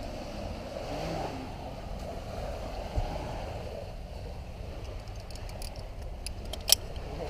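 Steady outdoor background noise of wind and surf on a climber's helmet-mounted camera. A dull knock comes about three seconds in, and a run of light clicks follows near the end, the sharpest just before it stops: climbing gear clinking on the harness as the climber moves.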